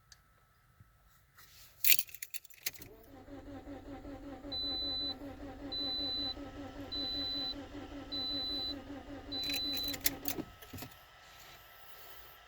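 Keys jangling at the ignition, then the 2009 Toyota Corolla's four-cylinder engine cranking on the starter for about seven seconds with an even rhythm, not starting because its fuel injectors are unplugged for a relative compression test. Five high beeps sound at even intervals during the cranking, and the keys rattle again as it stops.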